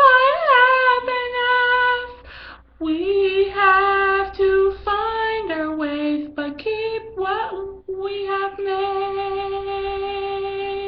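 A young woman singing unaccompanied, drawing out long sung notes that slide between pitches, with short breaths between phrases. It ends on one long held note.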